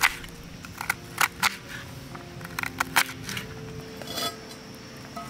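Knife chopping an onion on a wooden board: a handful of sharp, irregularly spaced cuts, then a softer scrape about four seconds in as the diced onion is pushed off the board into a cast-iron skillet.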